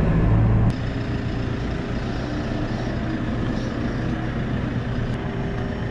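Engine of a piece of farm machinery running steadily, dropping abruptly to a quieter, lower idle under a second in.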